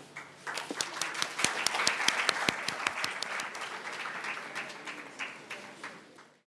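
Audience applauding: clapping starts about half a second in, is loudest around two seconds, then thins out and fades away.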